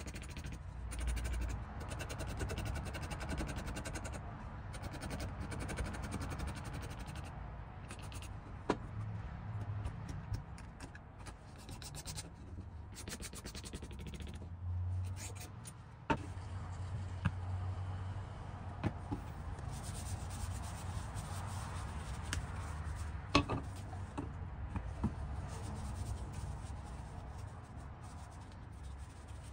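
A wooden axe handle sanded by hand with sandpaper, a continuous scratchy rubbing, as its old surface is taken back during restoration. A few short sharp knocks cut through it.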